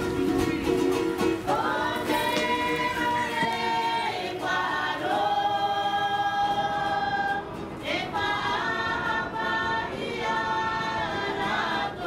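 Background music: a group of voices singing sustained notes in harmony, changing chords every second or two.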